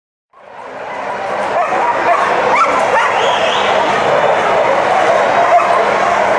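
Many excited flyball dogs barking and yipping at once in a large indoor hall, a dense continuous din with a few high whines through it. It fades in over the first second.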